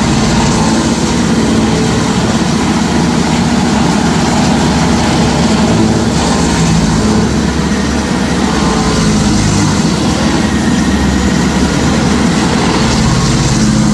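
Stump grinder running steadily: a constant engine drone under a loud, even hiss of noise.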